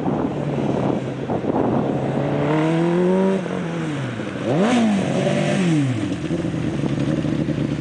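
Engine of a small open-wheel student race car running hard on a cone course: its pitch climbs, drops, jumps up sharply once about halfway and falls away again, then settles to a steady idle as the car pulls up and stops.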